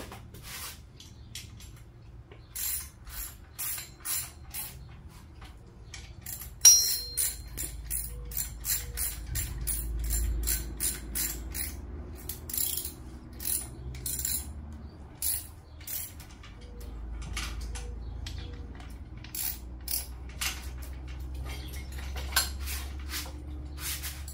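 Hand ratchet wrench clicking in quick strokes as bolts on the engine are worked loose, with one sharp metal clank about seven seconds in.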